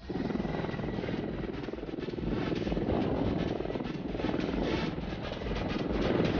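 Several Mi-24 attack helicopters lifting off, their main rotors beating rapidly over the steady run of their turbine engines.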